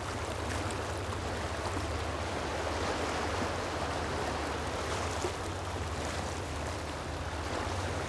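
Sea surf: small waves washing in steadily, a continuous wash of water.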